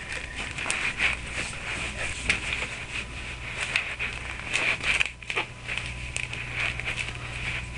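Handling noise as a foam-lined tube is slid onto an airsoft gun's barrel: rustling and scraping with scattered small clicks and taps.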